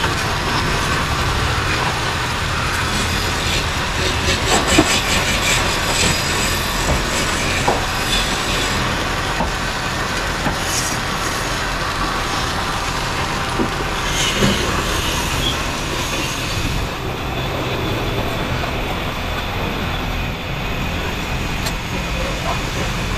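Belt-driven wood-turning lathes running with a steady rumble and rattle as a turning tool cuts into a spinning wooden charpai leg. A few sharp clicks stand out.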